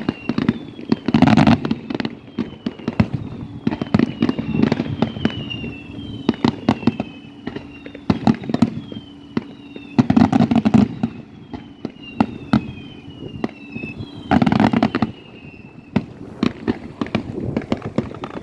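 Aerial fireworks show: a rapid string of bangs and crackling bursts, with three heavier booms standing out, about a second in, near the middle and toward the end. Short whistles falling in pitch recur throughout.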